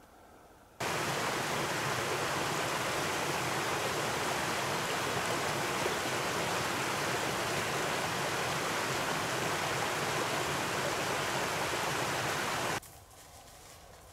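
Small creek rushing steadily over a low drop: an even wash of running water that starts abruptly about a second in and cuts off shortly before the end.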